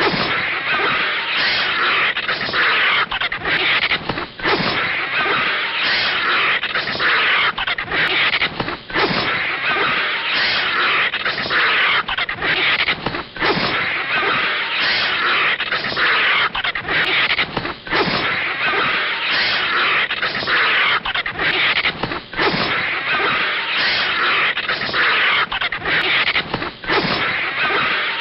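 Cartoon snake sound effect: a harsh, continuous hiss, broken by short gaps about once a second.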